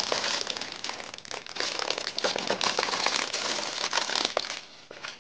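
Clear plastic wrapping crinkling and crackling as hands peel it off a small gift box, dying away near the end.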